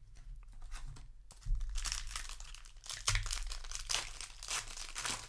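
Foil wrapper of a Magic: The Gathering set booster pack crinkling as it is handled and torn open, louder from about a second and a half in, with another loud stretch around three seconds in.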